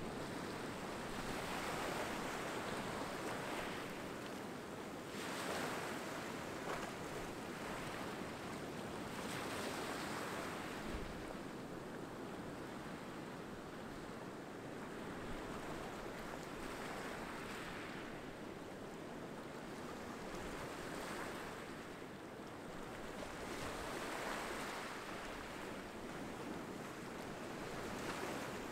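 Small waves breaking around rocks and washing up a sandy shore: a steady wash of surf that swells every few seconds.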